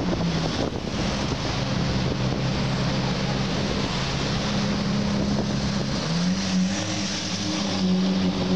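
Engine of a red Ferrari V8 convertible running at low revs as it drives slowly in traffic, its note stepping up in pitch about six seconds in and again near the end, with wind buffeting the microphone.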